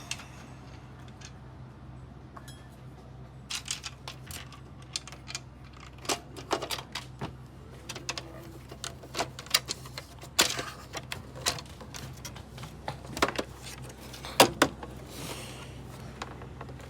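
Irregular light clicks and taps of small parts and tools being handled while a PS5 console is reassembled, over a steady low hum.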